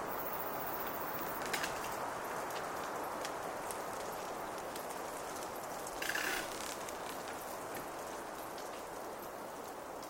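Steady pine-forest ambience: an even rushing hiss with scattered small ticks, and a brief rustle about six seconds in.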